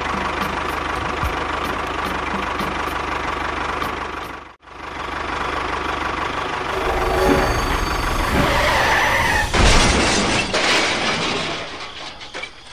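Tractor engine running steadily, with a brief break about four and a half seconds in, then a loud crash about ten seconds in as the toy tractor collides with a toy locomotive.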